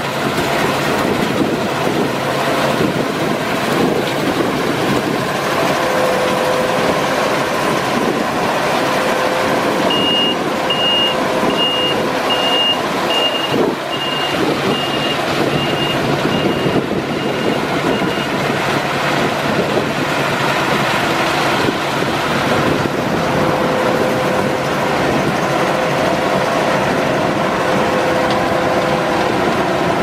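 Claas Lexion 630 combine harvester running steadily while cutting a standing cereal crop, a dense, even machine noise. About ten seconds in, a high warning beeper starts, sounding about twice a second for some eight seconds.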